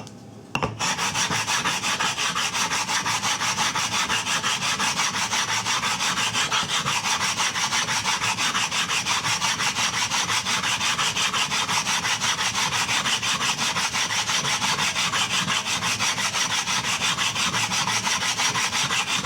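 A small flattening stone rubbed quickly back and forth on a Naniwa Chosera 400-grit water stone, making a steady, evenly repeating gritty rasp of stone on stone as the water stone is lapped flat. The rubbing starts just under a second in.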